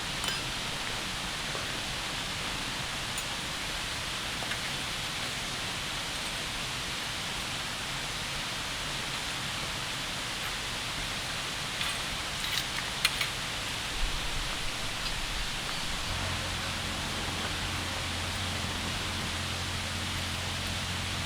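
Steady rushing noise of water outdoors, even and unchanging, with a few light knocks about twelve to thirteen seconds in. A low, steady hum joins about sixteen seconds in.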